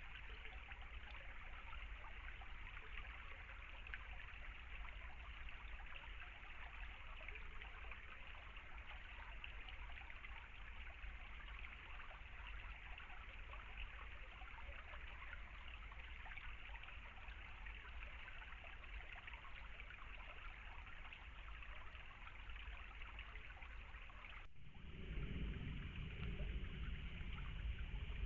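Shallow stream trickling steadily over stones. About three and a half seconds before the end the sound cuts abruptly to a louder, deeper rush of water.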